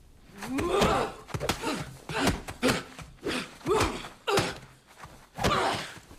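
A man grunting and huffing with effort about eight times in quick succession, each grunt a short falling sound, with thuds of blows landing during fight training.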